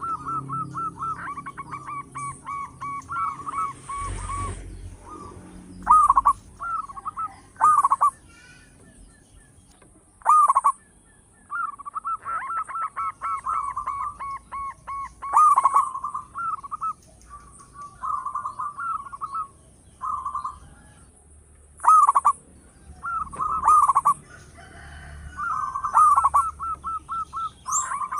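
Zebra dove cooing in repeated phrases. Each phrase opens with a loud swooping coo and runs on into a quick string of short staccato notes, with brief pauses between phrases.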